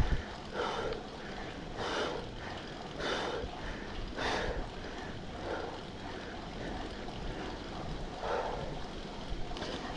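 Wind and rolling noise from a moving bicycle, heard on the rider's camera microphone. Short louder rushes of air come about once a second in the first half, then more sparsely.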